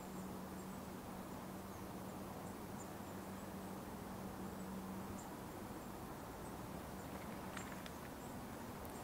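Faint open-air summer ambience: scattered high chirps, a low steady hum that stops about five seconds in, and a few footsteps near the end.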